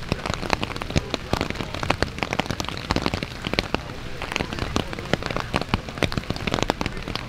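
Rain falling steadily, with many sharp, irregular drop hits striking a surface close by.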